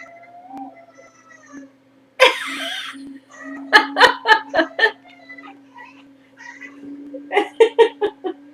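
A pet cat's odd, drawn-out call, wavering and rising, mixed with a person coughing and laughing. A harsh cough comes about two seconds in, followed by two runs of quick, laughter-like pulses.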